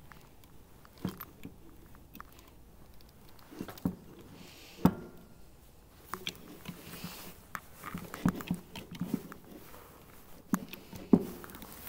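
Irregular clicks and knocks from working a hand-operated hydraulic crimping tool, crimping a 4-gauge lug onto three 10-gauge wires. The sharpest knock comes about five seconds in.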